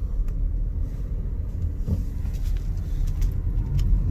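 Car driving slowly, heard from inside the cabin: a steady low rumble of engine and tyres on the road, with a few short sharp ticks scattered through it.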